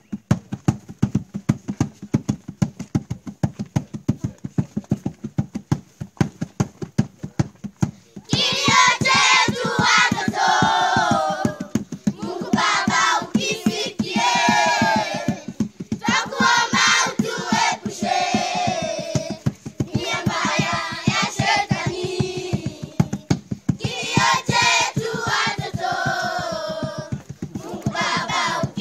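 Group of children clapping a steady beat, about three claps a second; about eight seconds in, they start singing together over the clapping.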